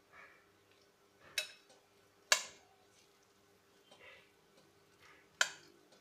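Raw chicken mince being mixed by hand in a glass bowl. Three sharp clinks against the glass come at uneven moments, with soft squishing sounds in between.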